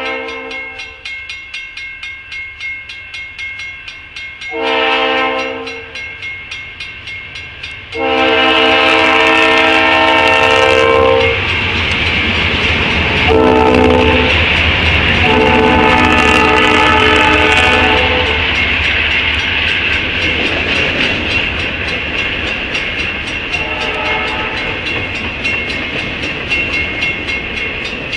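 Diesel freight locomotive sounding its multi-note air horn for a level crossing in a series of blasts. The loudest are a long, a short and a long blast as it reaches the crossing, about 8 to 18 seconds in. Then comes the rumble and clatter of the locomotives and freight cars rolling past, with a crossing bell dinging steadily throughout.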